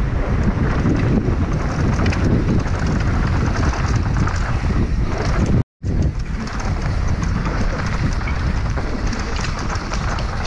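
Wind buffeting the GoPro microphone as a downhill mountain bike rolls fast over a dirt trail, with tyre noise and the bike clattering over the rough ground. The sound cuts out for an instant about halfway through.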